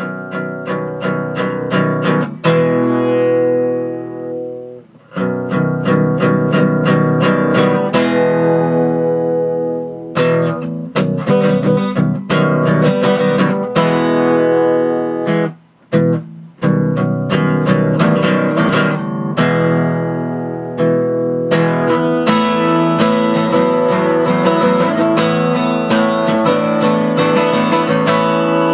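A guitar played solo: an instrumental piece of strummed and picked chords, with two brief breaks, one about five seconds in and one around the middle.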